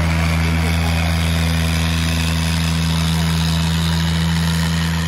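Tractor diesel engine running steadily at a constant speed, a loud low hum that holds the same pitch throughout.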